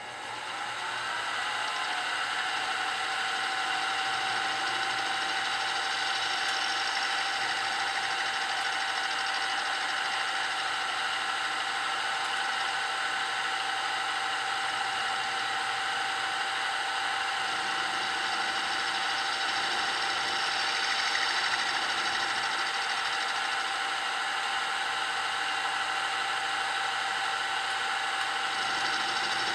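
Grizzly G0704 milling machine spindle spinning up over the first couple of seconds, then running steadily with a whine, while a half-inch end mill cuts a shallow 1/32-inch-deep slot across a workpiece.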